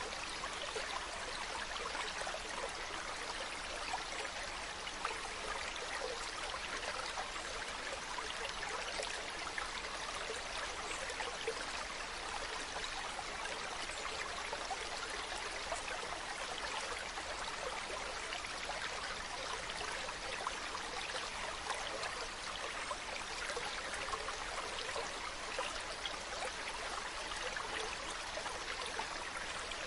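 Mountain stream running over rocks: a steady rushing and babbling of water with small splashes throughout.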